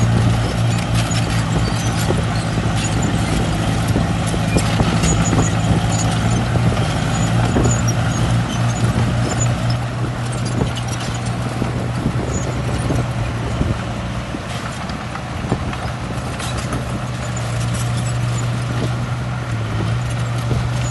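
Heavy diesel earthmoving machinery running steadily, with a low drone and repeated short metallic clanks and clicks throughout.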